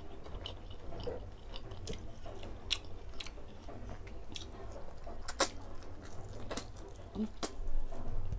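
Close-up mouth sounds of someone chewing crispy deep-fried pork belly (lechon kawali) and rice, with many short, sharp crunches of the crackling skin scattered throughout, the loudest about five and a half seconds in.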